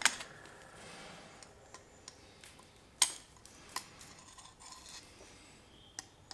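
A few light, sharp metallic clinks and knocks with quiet between them, like tools or metal pieces being handled and set down. The loudest is about three seconds in.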